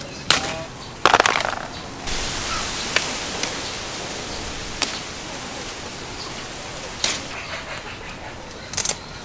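Round eggplants being picked by hand among leafy plants: several sharp snaps of fruit stems breaking off, with leaves rustling and crackling in between, loudest about a second in.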